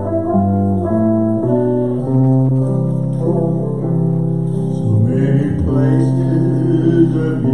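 Live band playing a slow song, with electric and acoustic guitars carrying held notes and a singing voice coming in about five seconds in.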